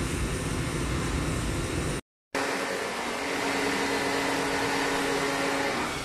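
Pressure washer cleaning split-type air-conditioner units: a steady hissing spray with a low rumble, broken off suddenly about two seconds in. After a brief gap comes a steady motor hum with a few held tones under the spray hiss.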